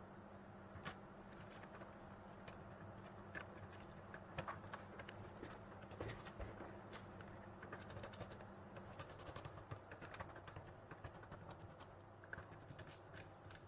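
Faint, scattered small clicks, taps and scrapes of a laptop's copper heat-pipe heatsink being set onto the mainboard over the CPU and screwed down with a small screwdriver.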